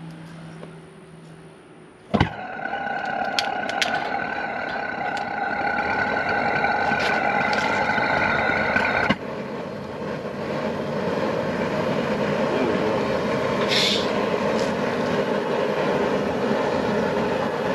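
Outdoor propane wok burner lighting with a sharp pop about two seconds in, then burning with a loud steady roar and a whistling tone. About nine seconds in the sound drops abruptly and the whistle goes, as the gas is adjusted at the tank valve, and the burner roars on steadily.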